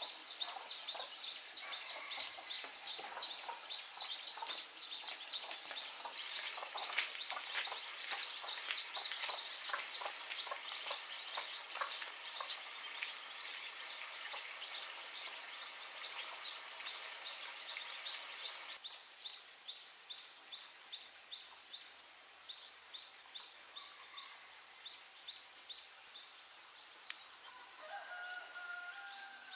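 Rural outdoor ambience led by a high, short chirp repeating evenly about three times a second, with scattered clicks and crackles in the first half. A few short clucking calls come near the end.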